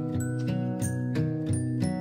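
Background music: plucked, pitched instrumental notes in a steady rhythm, about three a second.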